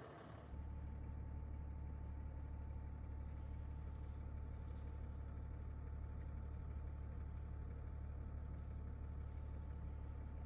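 Steady low engine hum with a faint steady whine above it, starting abruptly about half a second in.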